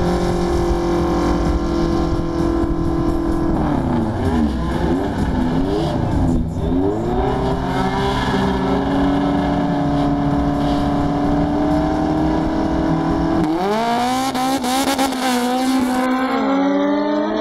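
Two drag-race cars, one a Honda Civic hatchback, running at the start line, revving up and down several times and then holding their revs steady. About 13 seconds in they launch and accelerate hard, engine pitch climbing through each gear with drops at the shifts as they pass close by.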